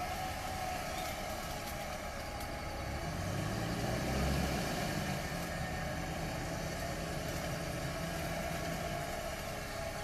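Off-road vehicle engine running steadily, with a steady whine over the low rumble; the rumble swells briefly about four seconds in.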